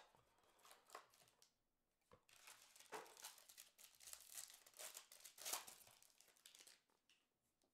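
Faint crinkling and tearing of a foil trading-card pack being ripped open, from about two seconds in until near the end, after a few light clicks of cardboard packaging.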